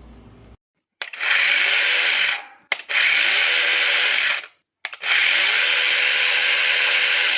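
Cordless electric mini chainsaw triggered three times: each time the motor spins up quickly, runs steadily for one to two and a half seconds, then stops.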